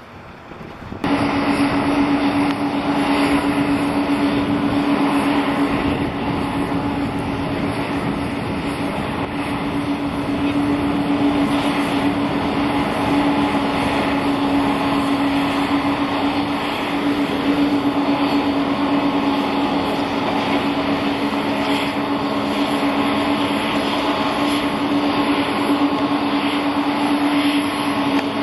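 Boeing 737's CFM56 turbofan engines running at taxi idle: a steady hum with a low droning tone over a jet hiss. It starts abruptly about a second in.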